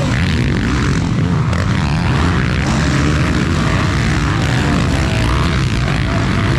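Motocross dirt bike engines running, the engine note slowly rising and falling over heavy, steady low-pitched noise.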